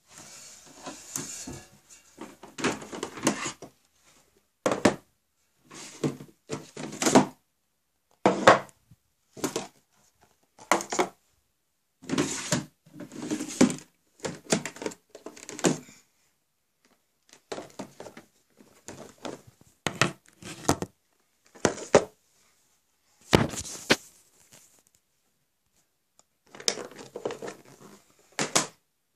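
Plastic storage boxes of loom bands being handled: an irregular series of short clattering knocks and rustles, with silent gaps between them and one sharper click about two-thirds of the way through.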